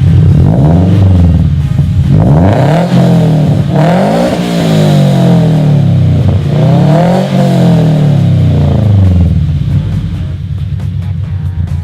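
Car engine fitted with aftermarket headers being revved several times, its pitch climbing and falling back with each rev, then settling lower near the end.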